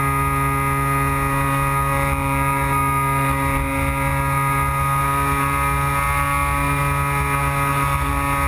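Electric motor and propeller of a Carl Goldberg Electra RC motor-glider running at a steady speed in flight, one unchanging pitched whine, with wind rumbling on the camera's microphone.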